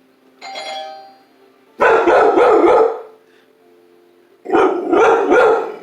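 A doorbell chime rings once, and the dog answers with two loud bursts of barking and screaming, each about a second long. The dog is reacting to the doorbell, a sound she hates.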